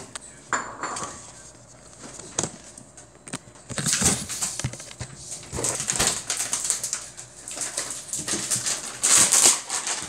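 Hand rummaging through a plastic tub of dishwasher detergent pods, the pods rattling and rustling against each other and the tub in a run of quick crackly bursts from about four seconds in. A few sharp clicks come in the first few seconds.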